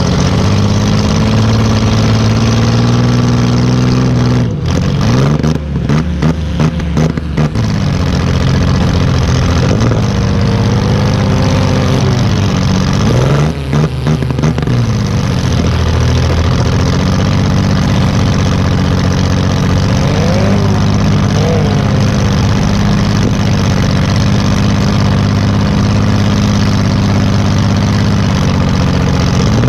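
2005 Chrysler Town and Country minivan's V6 engine running and revving, heard from inside the stripped cabin, its pitch rising and falling as the van drives. Twice, about five seconds in and again near fourteen seconds, the engine note drops away into a spell of rapid, uneven clattering before it picks up again.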